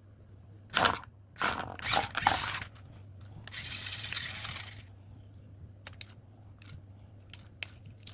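Plastic knocks and clatter from a toy off-road RC car being handled, then its small electric motor and gearbox whirring for about a second and a half, followed by light clicks.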